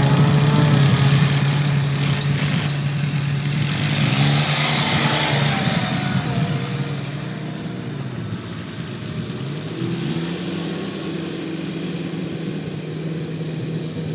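Rice harvesting machine's engine running, its pitch rising and falling a few times as the engine speed changes. A rushing hiss is strongest in the first half and fades after about six seconds.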